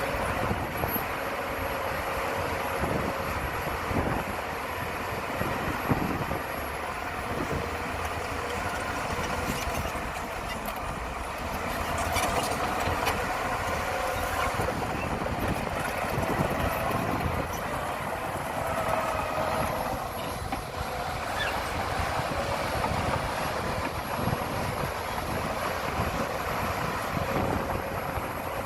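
Heavy diesel earthmoving machinery running steadily, with a few knocks and clanks.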